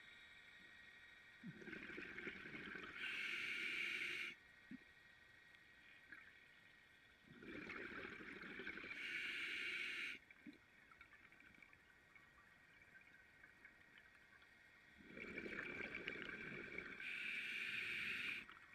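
Scuba diver breathing through a regulator underwater: three breaths about seven seconds apart, each a rush of bubbling and hiss lasting about three seconds, with quieter stretches between.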